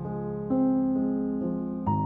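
Background music: a soft keyboard piece of sustained piano-like chords, with a new chord struck about half a second in and another near the end.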